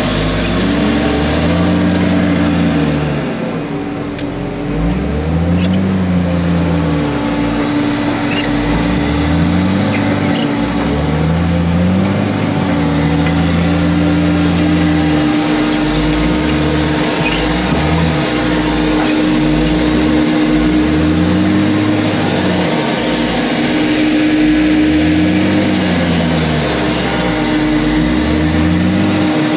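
Heavy loader's engine revving up and dropping back over and over, about every two to three seconds, as its hydraulics work the bucket down onto junk cars to crush them. A steady whine from the hydraulics holds under the engine throughout.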